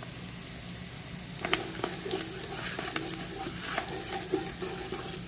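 Sofrito and browned ground beef sizzling as they fry in a large pot, now that the vegetables' water has cooked off. From about a second and a half in, a spoon stirs and scrapes through the mixture with scattered clicks.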